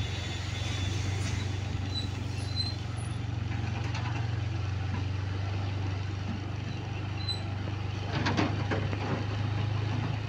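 Motorcycle engine running steadily at low road speed, heard from the rider's seat, getting briefly louder and rising in pitch about eight seconds in.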